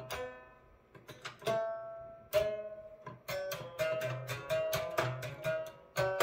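Homemade 31-tone equal-temperament clavichord strung with guitar strings, played as a simple melody with low notes underneath. Each key's metal tangent hits its string with a sharp click, then a twangy note, a cross between a banjo and a typewriter, rings and fades.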